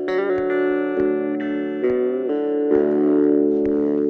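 Outro music: guitar chords with effects, ringing and held, changing chord a few times.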